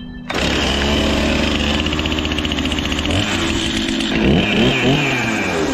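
Stihl MS261C two-stroke chainsaw starting up loudly and idling steadily, then revved up and down from about three seconds in.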